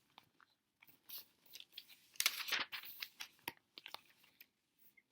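Pages of a picture book being turned and handled: a longer rustle a little after two seconds, among scattered small taps and clicks.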